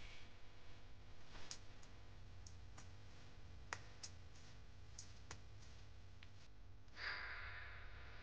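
Faint, scattered sharp clicks, about ten of them, over a low steady hum, with a short soft hiss about seven seconds in.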